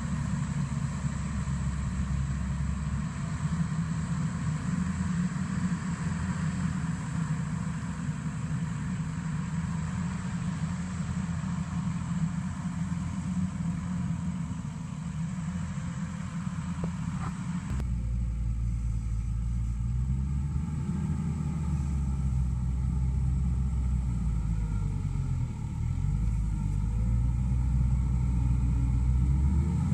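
Mustang MTL325 compact track loader's diesel engine running steadily as it pushes dirt. A little past halfway the sound turns closer and heavier, and near the end the engine pitch sags and recovers a few times as it works under load.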